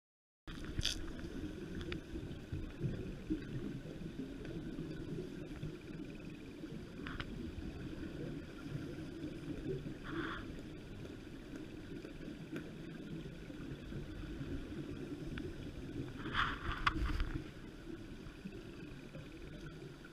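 Muffled underwater ambience: a steady low rush of water noise, with a few brief higher crackles, the loudest about three-quarters of the way through.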